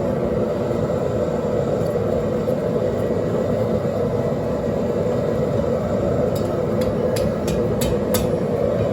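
Hell's Forge propane forge burner running with a steady roar. About six seconds in, a quick series of about six light clicks or taps.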